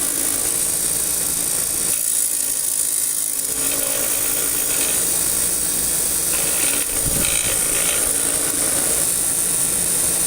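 A variable-speed power tool running at speed, with a steady high hiss, as a part of an old cast-iron vise is held against it to clean and shape it.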